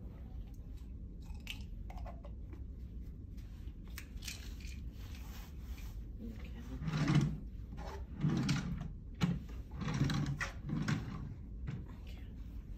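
Light handling noises: scattered clicks and rustles as hands work small items and a laptop keyboard. Several louder, muffled low sounds come between about seven and eleven seconds in.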